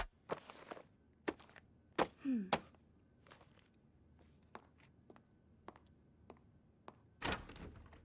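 Scattered soft knocks and thuds in a quiet stretch, with a short low falling sound about two seconds in and a louder thud near the end.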